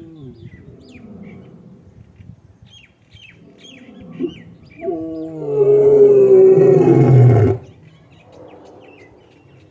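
Male African lion roaring: a loud, deep call builds over about two seconds and cuts off sharply about seven and a half seconds in, after softer grunting calls. Birds chirp in the background.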